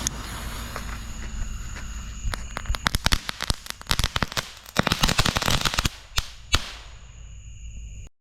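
Two crackling ball fireworks going off. A fizzing hiss runs for about three seconds, then a dense burst of rapid crackles for about three seconds, then two last sharp pops and more hissing before the sound cuts off suddenly.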